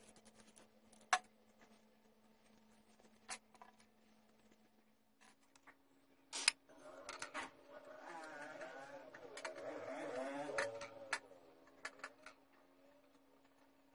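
A few sharp clicks and taps as small model-car parts are handled, then for several seconds in the middle a wet, wavering squelch as clear gel is squeezed out onto a small metal dish. A steady low hum runs underneath, stepping up slightly in pitch about five seconds in.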